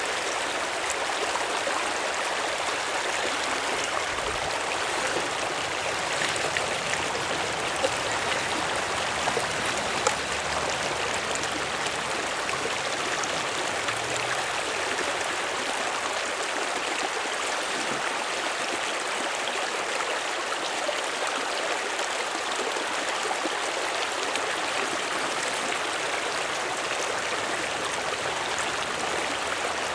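Shallow rocky creek running steadily: a constant rush of water over stones, with a few light knocks about eight to ten seconds in.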